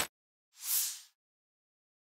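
A whoosh effect: a short swell of airy hiss about half a second in, rising and fading away within half a second. Right at the start, the last instant of a louder full-range hit cuts off.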